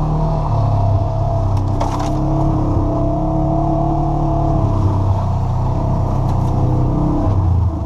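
Polaris RZR side-by-side's engine running under steady moderate throttle on the trail, its pitch holding fairly even with small dips and rises.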